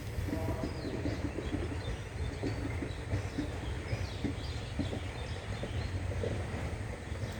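Train rolling past on the track: a steady low rumble of wheels on rail, with many irregular clacks and knocks from the wheels and couplings.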